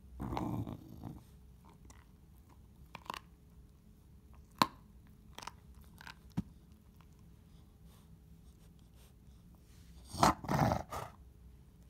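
A chow chow gnawing on a chew, with sharp crunching clicks every second or so, and a short low growl at the start and a louder growl near the end as a hand reaches in and touches it.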